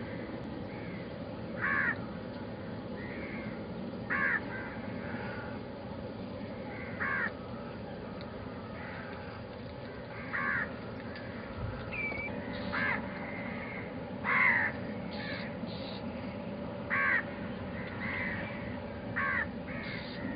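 A bird calling repeatedly: short calls about every two to three seconds over steady background noise.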